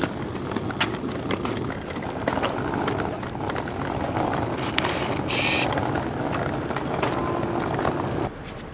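Wheeled suitcase rolling over rough concrete pavement, its wheels rattling steadily with scattered clicks. A brief hiss about five seconds in. The rolling cuts off abruptly near the end.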